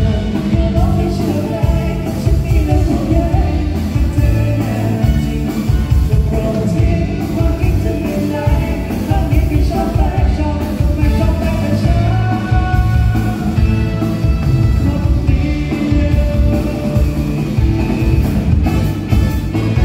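Live band playing a rock-style song with a lead singer over heavy bass and a steady beat.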